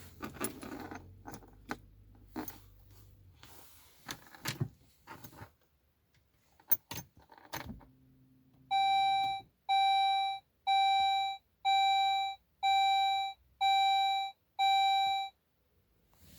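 Keys rattling and clicking in the ignition, a brief low hum, then seven evenly spaced electronic warning beeps from a Saab 9-5's dashboard chime, about one a second, each held for just over half a second.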